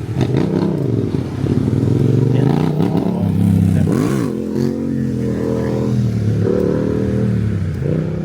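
Motor vehicle engines running close by in street traffic, their pitch rising and falling as they accelerate and slow, with one quick rev up and back down about four seconds in.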